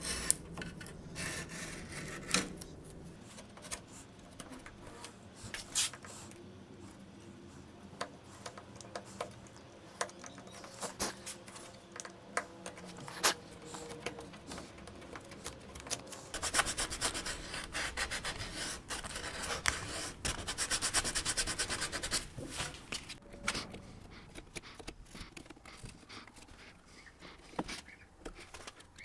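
Snap-off utility knife blade scraping and cutting through the overhanging edge of thin wood veneer, trimming it flush. Scattered clicks and scrapes, with several seconds of quick, repeated scraping strokes about halfway through.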